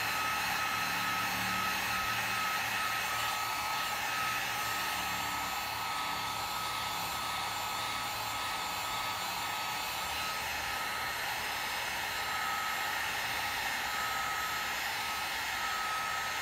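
Drill Master heat gun running steadily: a rush of blown air with a steady high whine.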